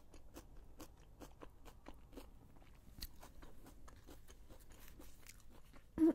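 Close-miked chewing of food: soft crunchy, wet mouth sounds several times a second, with one sharper click about three seconds in.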